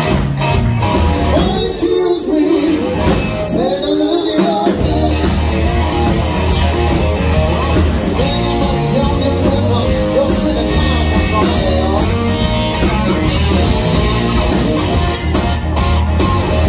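Live rock band playing: two electric guitars and a drum kit. The low end drops out for about three seconds near the start, then the full band comes back in about five seconds in.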